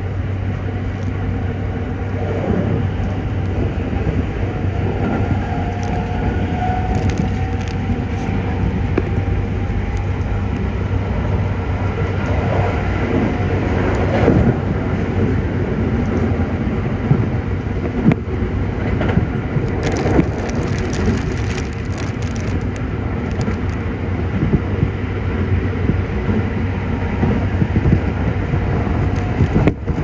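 Toei 5500 series electric train running at speed, heard from inside the car: steady running noise of wheels on rails, with a crackling of heavy rain against the train. A faint whine from its Mitsubishi full-SiC VVVF traction drive glides in pitch about a quarter of the way in.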